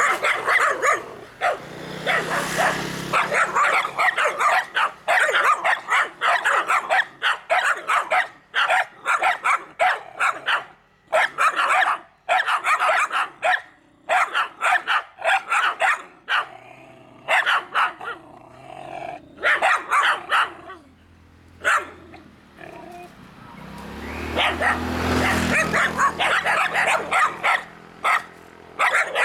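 Several dogs barking over and over in quick short barks, with only brief pauses. A low rumble swells and fades about two seconds in and again near twenty-five seconds in.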